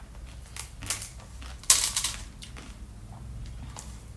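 A person biting and chewing crunchy fruit: a string of crisp clicks, with one louder crunch a little under two seconds in.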